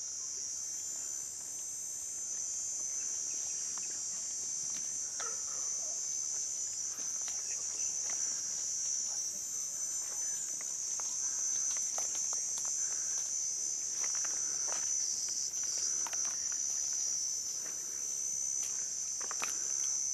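Steady, high-pitched drone of insects in daytime forest, with faint scattered rustles and snaps of footsteps in dry leaf litter.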